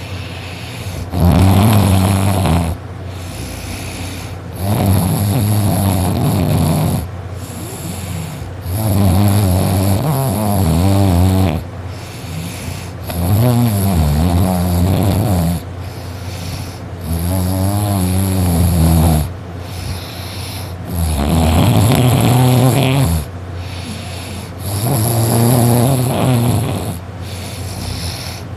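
A sleeping boy snoring loudly and rhythmically: seven long snores, each about two seconds, one roughly every four seconds, with quieter breathing between.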